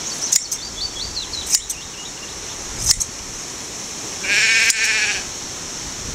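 A Shetland sheep bleats once, a call of about a second some four seconds in, between a few sharp snips of hand shears cutting through fleece.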